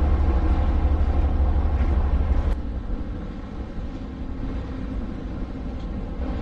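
Wind rumbling on the microphone outdoors, a steady low rumble that drops away suddenly about two and a half seconds in, leaving quieter outdoor noise.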